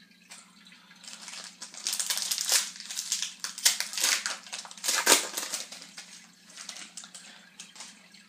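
Trading-card pack wrapper being torn open and crinkled by hand: an irregular run of sharp crackles and rustling, loudest in the middle.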